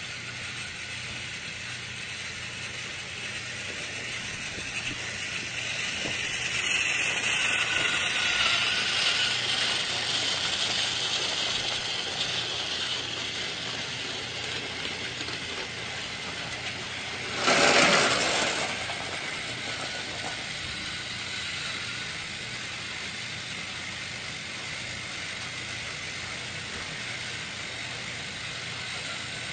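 Motorized toy train running on its track with a steady mechanical whir, which grows louder between about 6 and 12 seconds in. About 18 seconds in comes one short, loud rush of noise lasting about a second.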